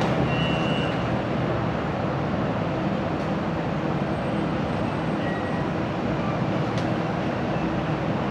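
Inside a Siemens Inspiro metro carriage: steady low rumbling cabin noise of the train, with a short high beeping tone in the first second.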